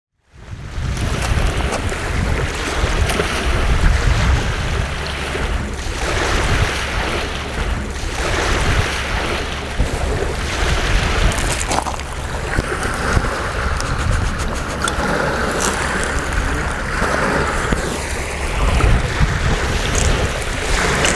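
Small waves lapping at a pebble shore, with wind rumbling on the microphone.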